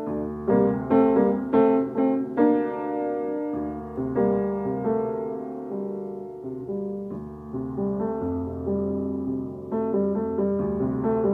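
Piano music: struck notes and chords ringing and fading, louder in the first few seconds, then softer held notes.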